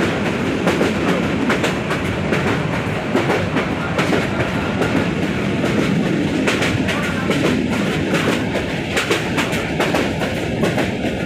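Inside a moving passenger train carriage: the steady rumble of the running train, with frequent irregular clicks and clatter from the wheels and the carriage fittings.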